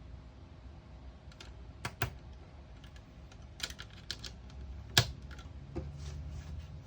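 Scattered light taps, about seven separate clicks at uneven spacing with the loudest about five seconds in. The tapping is done to trigger a Snap Circuits sound IC circuit that reacts to claps.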